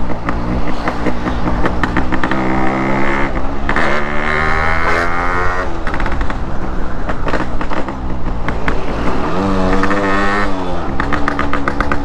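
Yamaha RX100's two-stroke single-cylinder engine running under way. Its revs climb from about four seconds in as the bike pulls past a car, then settle. They rise and fall back once more near the end.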